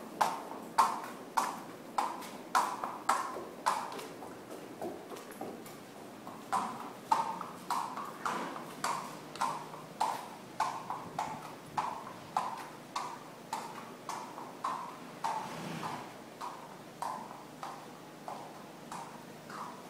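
A horse's hooves striking a concrete barn aisle at the walk, a regular clip-clop of about two sharp strikes a second, growing fainter toward the end as the horse is led away. The horse is being walked on a hard surface for a lameness check.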